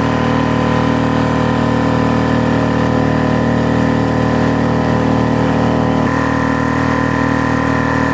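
A boat's outboard motor running steadily, its tone shifting slightly about six seconds in.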